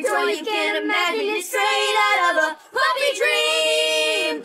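Sung vocals alone with the instruments removed by a vocal-separation tool. The voices sing a line, break briefly, then hold one long note near the end.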